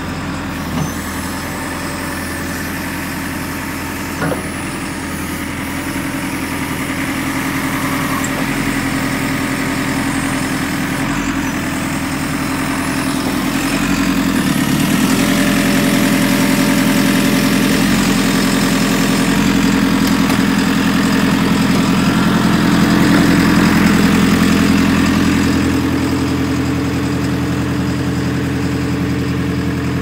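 A 2013 JCB 3CX Sitemaster backhoe loader's four-cylinder diesel engine idling steadily. It grows louder from about six seconds in and eases a little near the end, with two light knocks in the first few seconds.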